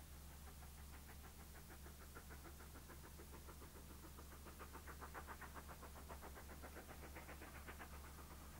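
Faint, distant exhaust beats of a small steam tank locomotive working a train: a quick, even chuffing rhythm that grows louder about halfway through, over a low steady hum.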